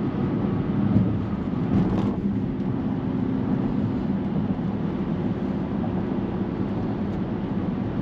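Widebody Dodge Charger's V8 engine running under throttle. It eases off about two seconds in and then drones steadily at cruise.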